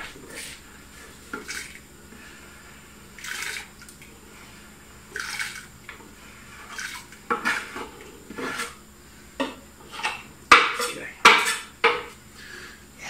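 Kitchen utensils and dishes clattering: a knife and bowls being handled, giving scattered knocks and scrapes, with a run of sharp knocks about ten to twelve seconds in.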